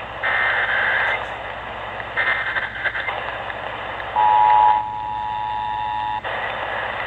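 Emergency Alert System tones on AM radio through heavy static: two short bursts of the warbling SAME digital header, then about two seconds of the steady two-tone attention signal, which cuts off about six seconds in.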